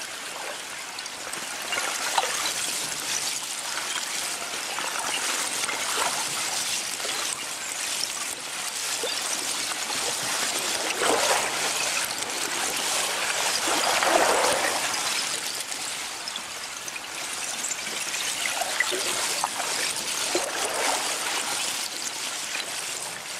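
Candle ice, the loose column-shaped crystals of a lake's rotting spring ice, tinkling and chiming as small waves wash the pieces against each other along the shore, with water lapping. The dense clinking swells and ebbs with each wave, loudest about fourteen seconds in.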